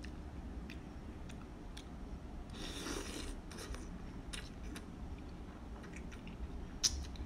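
Instant noodles being eaten close to the microphone: a hissing slurp about three seconds in, chewing, and scattered small clicks, with one sharp click near the end.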